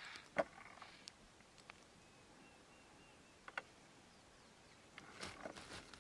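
Quiet outdoor ambience broken by a few sharp clicks, the loudest about half a second in and another about three and a half seconds in, with a cluster of small knocks and rustles near the end.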